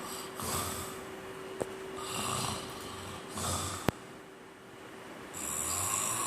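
A sleeping man snoring: about four rough snoring breaths, a second or two apart, the later ones with a low rattling rumble. A sharp click cuts in a little before four seconds in.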